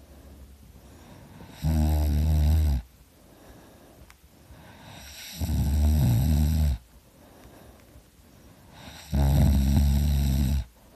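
A person snoring heavily in deep sleep: three loud snores about four seconds apart, each lasting a little over a second, with softer breathing between them.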